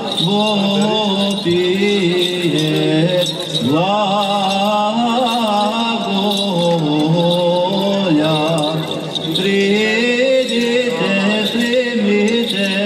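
Men chanting an Eastern Orthodox hymn, the melody moving over a held low drone note, with the small bells of a swung censer jingling now and then.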